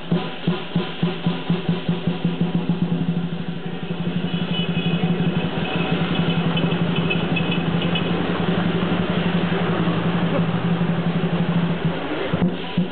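Chinese lion dance percussion: a large drum beating about three times a second, breaking into a fast continuous roll about four seconds in, then back to separate beats near the end, with cymbals and gong sounding alongside.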